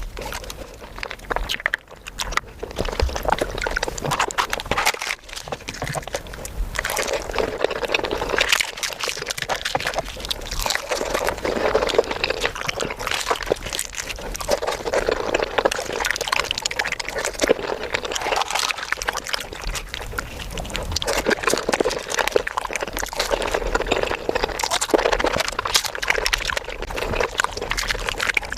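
Close-miked eating sounds of paneer butter masala, sped up: wet chewing, smacking and saucy squelching run together into a rapid, dense stream of clicks that swells and eases every second or two.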